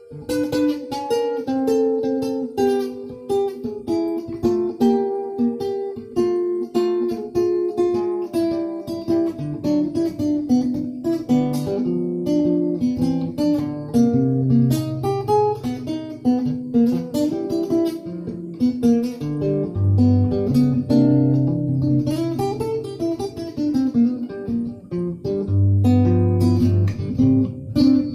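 Acoustic guitar music: a quick run of plucked notes, with low bass notes coming in about ten seconds in.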